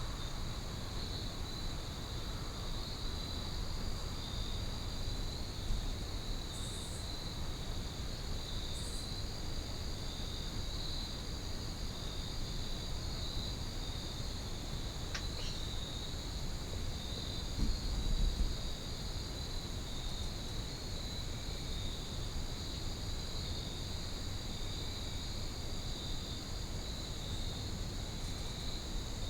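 Steady chorus of insects chirping, a fast pulsing trill that never lets up. A single low thump about two-thirds of the way through.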